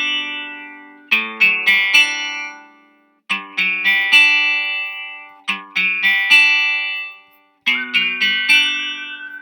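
GarageBand acoustic guitar loop playing back: a moody, pensive phrase of picked notes that restarts about every two seconds, each phrase ringing out and fading before the next. A held high note joins in near the end.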